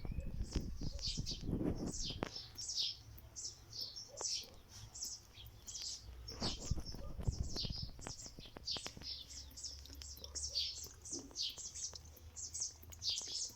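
Small birds chirping: a steady run of short, high, falling chirps, a few each second, with some low knocking and rustling in the first couple of seconds and again around six to seven seconds in.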